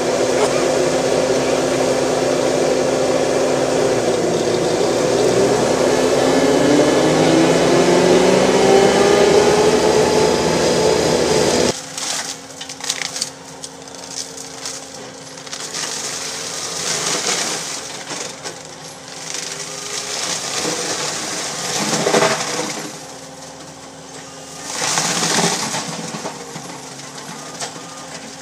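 Bobcat skid-steer with a forestry mower attachment running close by, its engine and spinning mulcher drum giving a loud, steady machine whine that rises in pitch about five to seven seconds in. About twelve seconds in the sound drops to a quieter, more distant hum, with loud surges around 17, 22 and 25 seconds as the drum grinds into cedar trees.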